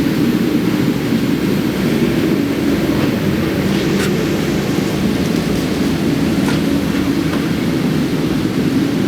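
Steady low drone of machine-like background noise, with a few faint clicks or taps about four, six and a half, and seven seconds in.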